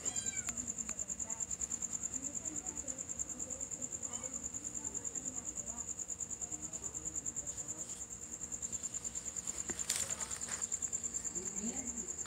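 A cricket chirping: a high, rapid, even pulsing, several pulses a second, that does not let up.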